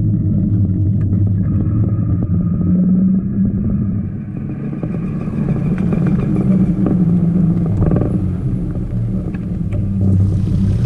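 Trike rolling along a wet paved path, a steady low rumble, with a hiss of water spray rising about ten seconds in as it runs into a large puddle.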